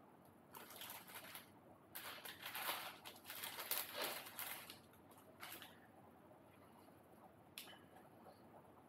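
Soft rustling and brushing handling noise in irregular bursts for the first few seconds, then a single faint click.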